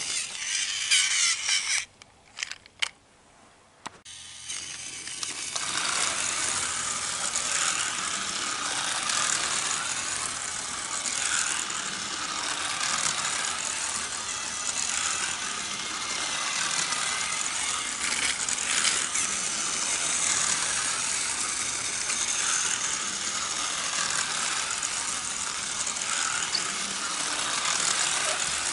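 Battery-powered toy race car and toy train running together on flexible plastic tracks: a steady whirring and rattling of small geared motors and wheels. It starts about four seconds in, after a brief quiet gap.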